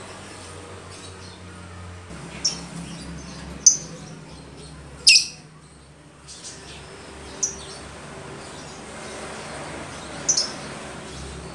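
Lovebird giving short, high-pitched calls, five in all with pauses of one to three seconds between them, the loudest about five seconds in. The bird is begging for food.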